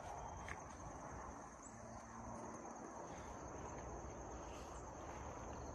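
Faint, steady, unbroken high-pitched trill of field crickets, with a low rumble underneath.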